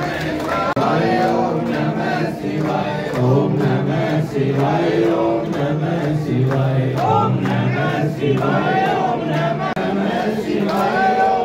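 Crowd of devotees singing a Hindu devotional kirtan together in a loud group chant, with hand-clapping.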